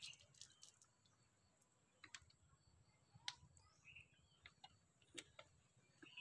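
Near silence with a dozen or so faint, irregular clicks and ticks from a plastic water bottle being handled and drunk from.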